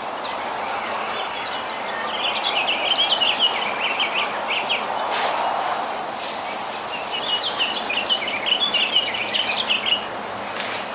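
Birds chirping in two spells of rapid high twittering, one starting about two seconds in and another about seven seconds in, over steady background noise.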